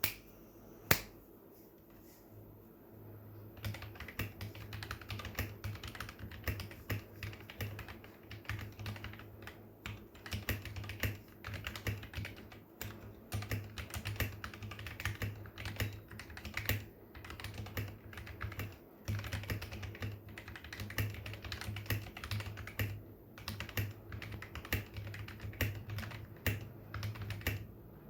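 Typing on a mechanical keyboard fitted with KeyKraft Moon Elves keycaps: two single sharp key clicks near the start, then from about three and a half seconds in a steady, continuous run of key clacks.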